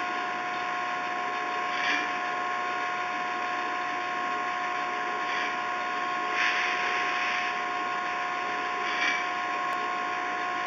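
Tube-drawing machine running, its drawing drum turning: a steady mechanical whine with two held tones over a constant rushing noise. Brief louder hissing surges come four times, a few seconds apart, the longest lasting under a second.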